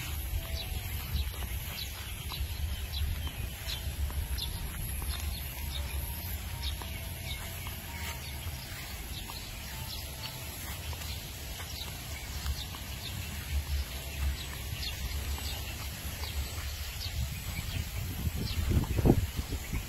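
Outdoor paddy-field ambience: small birds chirping in short, repeated notes over a steady high-pitched whine and a continuous low rumble. A louder low thump comes near the end.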